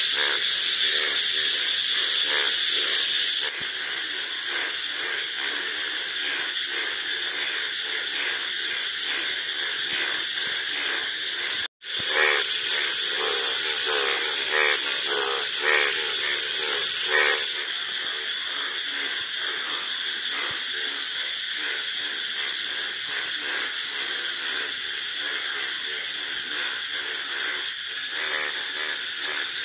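A dense, steady chorus of Indian bullfrogs calling in rainwater, the monsoon breeding chorus of the yellow-coloured males. In the middle, a run of about five louder, nearer croaks comes roughly one a second, just after a brief break in the sound.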